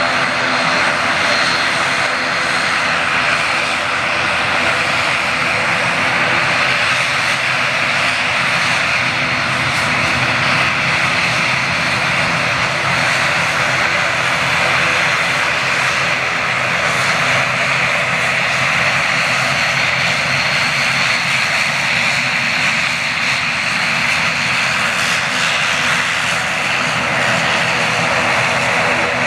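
An ATR 72-600's Pratt & Whitney PW127M turboprop engines running loud and steady, with a steady high whine over the engine noise.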